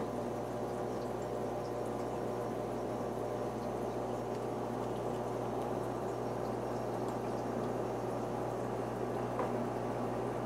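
Aquarium filter running: a steady watery bubbling noise with a low hum.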